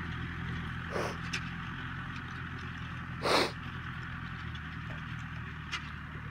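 John Deere 2555 tractor's diesel engine running steadily while pulling a disc harrow, a low drone whose pitch shifts slightly about four and a half seconds in. A short, loud puff of noise close to the microphone about three seconds in, with a fainter one about a second in.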